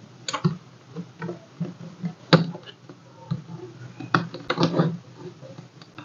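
Scattered small clicks and taps of fingers handling a laptop DC-jack cable, seating its small connector on the motherboard and routing the wire. The loudest click comes about two and a half seconds in, with a cluster a little past four seconds.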